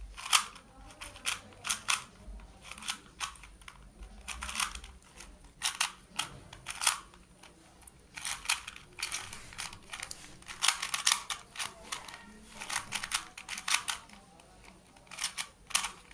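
Stickerless plastic 2x2 speed cube being solved by hand, its layers turning with fast, irregular plastic clicks and clacks in quick runs broken by short pauses.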